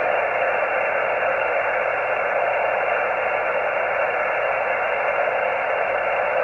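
Shortwave receiver tuned to the 20-meter amateur band giving a steady, narrow-sounding static hiss with no stations heard: an empty band under poor propagation.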